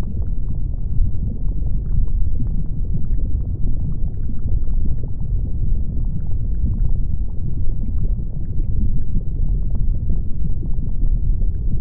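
Steady deep rumble of a volcanic eruption, with scattered faint crackles and pops of lava.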